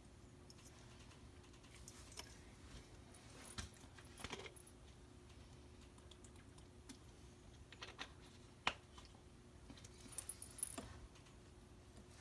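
Near silence: quiet room tone with a faint steady hum and a few scattered light clicks and taps, a small cluster about four seconds in and more near the end.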